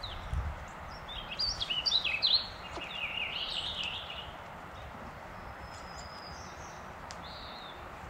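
A songbird singing one quick warbling phrase of varied notes, lasting about three seconds and starting about a second in, followed by a few faint single calls over a steady outdoor hiss.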